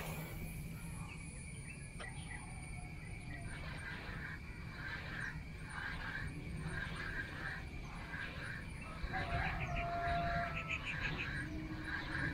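Outdoor animal calls: short chirps repeating roughly twice a second, and a single drawn-out crow, rooster-like, about nine seconds in.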